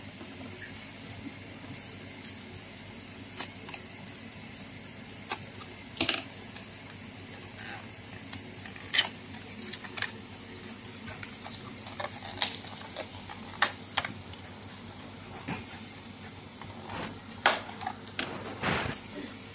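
Irregular clicks, taps and crinkles of cardboard and plastic packaging being handled and opened, over a steady low background hum.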